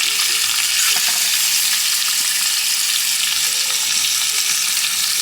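Bacon sizzling steadily in a frying pan.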